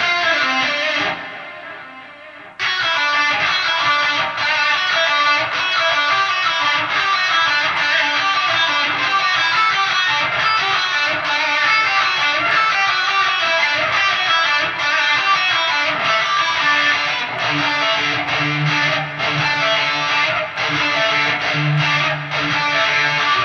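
Electric guitar played through a Neural DSP amp-simulator plugin, with an ISP Hum Extractor and Decimator G noise reducer keeping it free of hum. A chord rings and fades over about two seconds, then a fast, continuous run of notes starts and carries on, with longer held low notes near the end.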